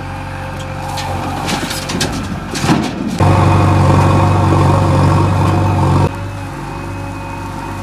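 JCB machine's diesel engine running steadily, with a few sharp knocks and clanks about two seconds in. Just past three seconds it suddenly runs much louder, held for about three seconds, then drops back to its lower speed.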